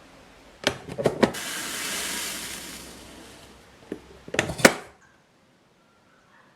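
Several sharp clicks and knocks, then a hiss that swells and fades over about three seconds, then a few more knocks.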